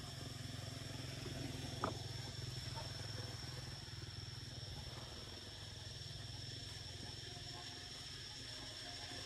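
Faint outdoor ambience: a steady high-pitched insect drone over a continuous low engine-like rumble of traffic, with a single click about two seconds in.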